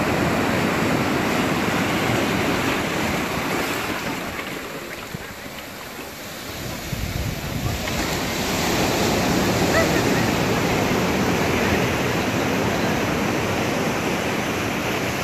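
Sea surf breaking and washing in foam over rocks and sand: a steady rush that falls away about a third of the way through, then swells up again as the next wave comes in.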